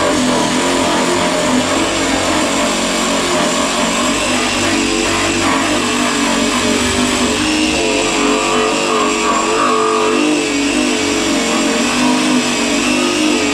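Handheld power tool running steadily as it grinds on the damaged car body panel, with a constant whine.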